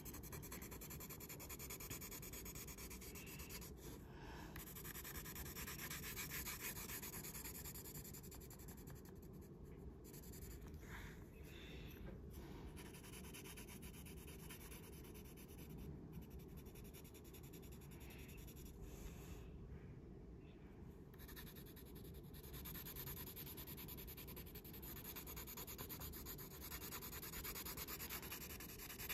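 Graphite pencil held slanted almost flat and rubbed across paper in shading strokes: a faint, steady scratching that pauses briefly a few times.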